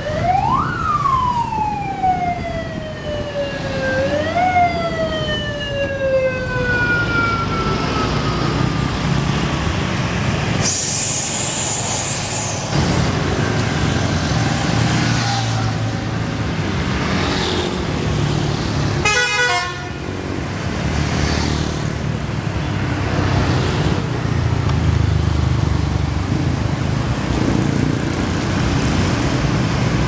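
Police-style siren wailing in two slow sweeps, each rising quickly and falling away, fading out by about seven seconds in. A bus engine and street traffic run underneath, with a loud burst of hiss around eleven seconds in.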